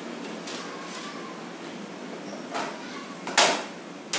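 Objects handled on a kitchen counter: a short scrape about two and a half seconds in, then a single sharp knock about a second later, the loudest sound.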